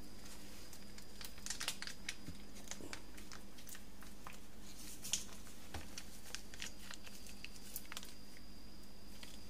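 Faint crinkling and scattered light clicks of hands handling food and its container, with a steady faint background hum.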